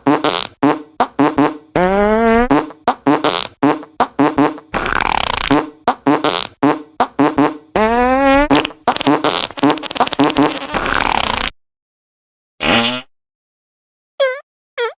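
A rapid string of fart sounds, one after another: short pops mixed with longer raspy ones whose pitch rises. They stop about eleven seconds in, and one short fart follows. Near the end come two quick squeaks that fall in pitch.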